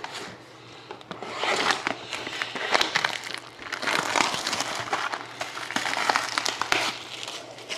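Plastic shrink wrap crinkling and crackling in repeated swells, as a sealed box of trading cards is unwrapped by hand.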